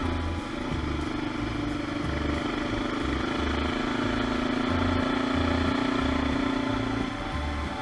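Kawasaki KLE400 parallel-twin engine running at a steady pace under way, its pitch shifting slightly just after the start and again about seven seconds in.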